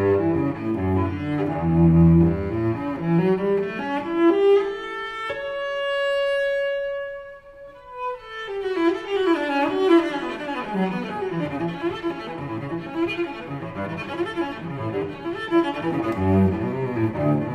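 Background classical music on bowed strings. Busy moving notes give way to a single long held note about five seconds in. The note dies away over the next couple of seconds before the music picks up again.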